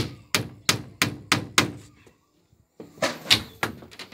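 Hammer driving nails into wooden framing: sharp, even blows about three a second. A short pause about halfway, then the blows resume.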